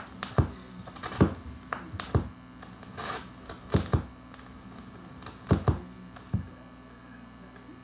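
Irregular clicks and knocks from hands working the tonearm and cueing lever of a Dual 1225 turntable, about a dozen in all. Under them runs a steady low mains hum, which the owner puts down to the turntable's ground wire not being hooked up.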